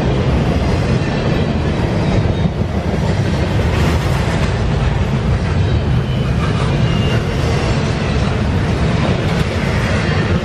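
Double-stack intermodal freight train's loaded well cars rolling past close by: a steady, loud rumble of steel wheels on rail, with faint high tones coming and going.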